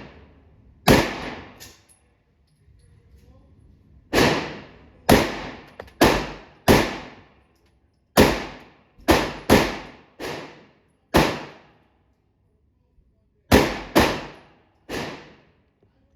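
9mm pistol shots fired singly at an uneven pace, about fifteen in sixteen seconds, each cracking and then dying away quickly, with a few fainter shots among them.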